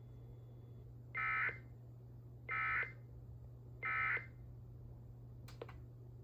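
Three short bursts of Emergency Alert System SAME digital data tones, evenly spaced about a second and a half apart: the End of Message code that closes the weather alert relay. A single click follows near the end, over a steady low hum.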